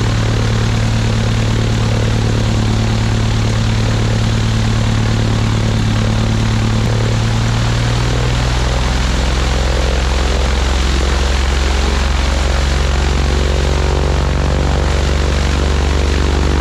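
Piper Cherokee 235's six-cylinder Lycoming O-540 engine and propeller running steadily during a ground run-up after a fresh oil change; the engine note drops lower about halfway through.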